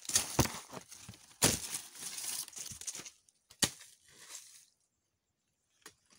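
Long-handled digging tool scraping and crunching into dry soil and dead leaves in uneven strokes, with a sharp knock about three and a half seconds in.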